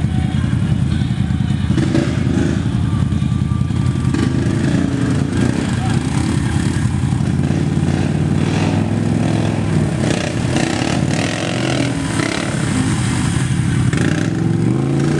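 ATV engines running in thick mud, revving up and down as one quad tows a stuck quad out with a strap.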